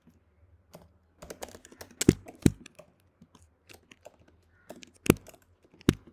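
Typing on a computer keyboard: a run of irregular keystrokes, with a few louder key presses, two about two seconds in and two more after five seconds.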